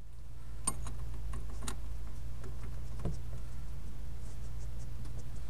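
Scattered light clicks and a duller knock of a gloved hand and wrench working at a power steering pressure hose fitting, over a steady low hum.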